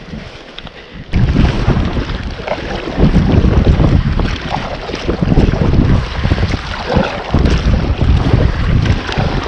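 Strong wind buffeting the microphone, coming in suddenly about a second in and gusting unevenly, with wind-driven waves and water noise beneath.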